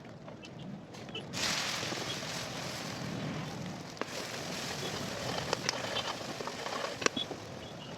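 Food sizzling in hot oil in a pan, starting suddenly about a second in and going on steadily with scattered pops and crackles.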